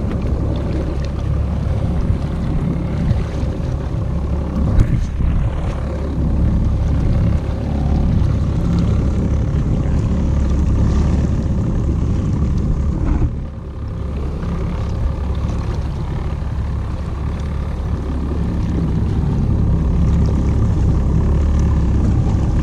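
2017 Evinrude E-TEC 90 hp two-stroke outboard running steadily at trolling speed, a low rumble with a steady hum above it; the loudness dips briefly about halfway through.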